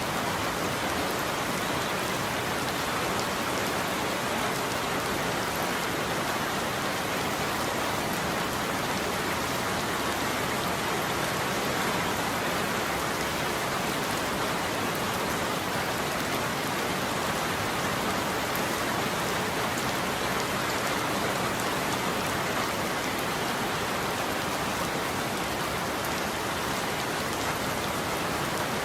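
Steady rain falling on a roof, an even, unbroken patter of dense drops.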